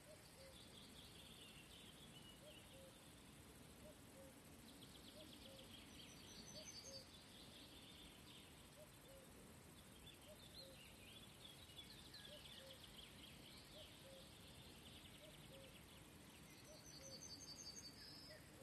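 Near silence: faint outdoor ambience with distant birdsong, quick trills and chirps that are loudest about a third of the way in and near the end, over faint, evenly spaced ticks.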